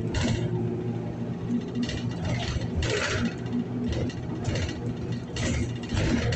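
Inside a city transit bus: the bus's low running rumble, with a short, high, scratchy noise recurring about once a second, the annoying sound on the bus.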